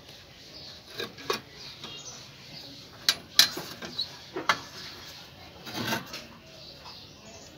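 Several sharp metallic clinks and knocks, with a short scraping rustle near the end, as the rusty tin lantern and its wire bail are handled and shifted. Faint bird chirps sound throughout.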